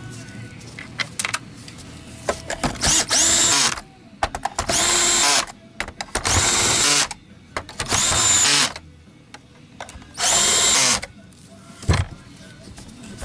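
Cordless drill-driver run in five short bursts of about a second each, its motor whine rising at the start of each burst, with small clicks and knocks in between.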